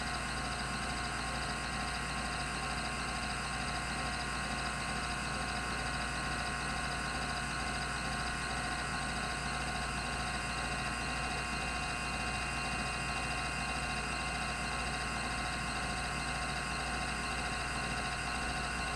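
Rodime RO352 two-platter 3600 RPM hard drive spinning steadily, an even whine made of several steady tones over a hiss, with no seek clicks.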